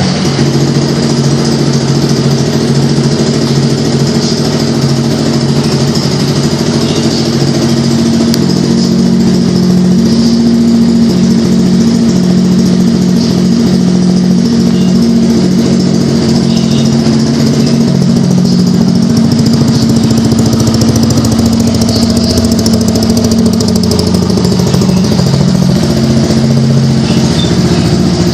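Suzuki Burgman 125i scooter's single-cylinder engine idling steadily through an aftermarket aluminium exhaust tip.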